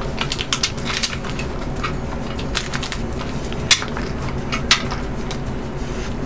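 Scissors snipping the seal on a smartphone's cardboard retail box, then the box handled and turned in the hands, with crackling, rubbing and scattered clicks, two of them sharper a little past the middle.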